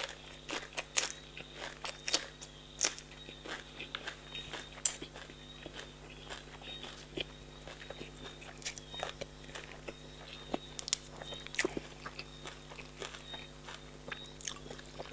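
Close-up chewing of a mouthful of larb gai, spicy Thai minced chicken salad, with frequent short crunches and wet mouth clicks.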